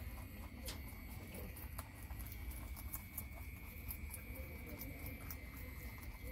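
Several rabbits nibbling raw carrot, a quick irregular patter of small crisp bites and crunches, over a steady faint high-pitched whine.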